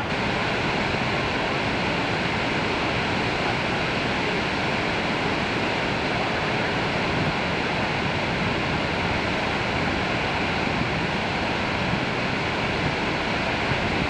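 Niagara Falls' water pouring down: a steady, even rushing noise that holds the same level throughout.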